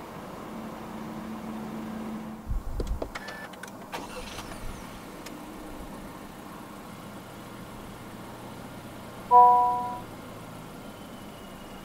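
Steady low hum inside a car, then a few low thuds and a run of sharp clicks. About nine seconds in, the 2022 Honda HR-V 1.5 Turbo E's dashboard gives one chime of several tones sounding together as its instrument cluster comes on, fading within about half a second.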